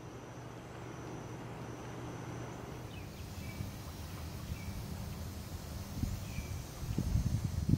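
Outdoor wetland ambience: a steady low rumble, a faint thin insect drone for the first couple of seconds, and a few short bird chirps in the middle, with some low thumps near the end.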